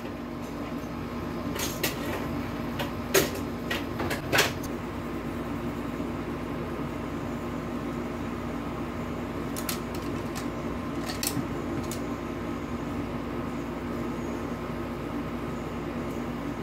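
Steady hum of a room appliance, with a few light clicks and taps of colored pencils being set down and picked up on a desk.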